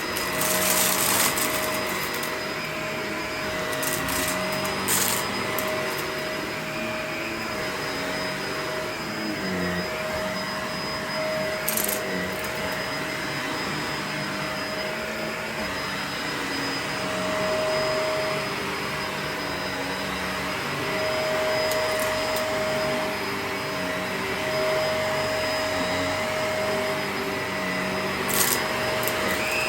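Vacuum cleaner running steadily with a held motor tone, with a few short clicks as it is pushed about.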